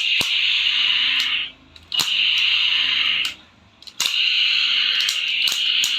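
Toy gun's electronic sound effect fired three times: a harsh buzzing blast, each one starting with a click of the trigger, the first two about a second and a half long and the third running longer.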